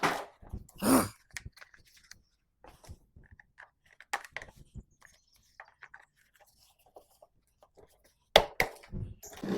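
Scattered clicks, knocks and rustles of handling, with a sharp, louder knock about eight seconds in; no engine is running.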